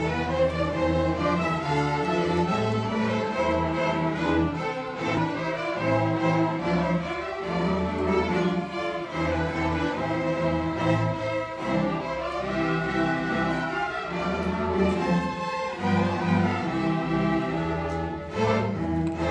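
String orchestra of violins, cellos and double bass playing a piece together, the bowed melody over a pulsing low bass line.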